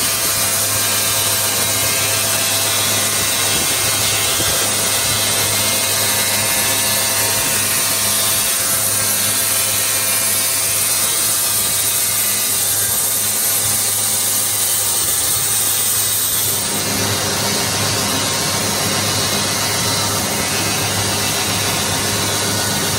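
Crankshaft grinding machine running, its wheel grinding a large crankshaft journal: a steady hiss over a constant machine hum. The sound shifts in tone about three-quarters of the way through.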